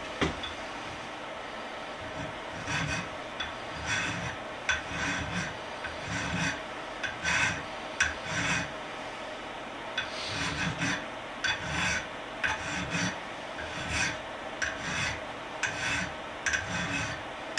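Hand file scraping across the steel end of a hammer head in repeated strokes, about two a second, filing down a rough edge and squaring the end.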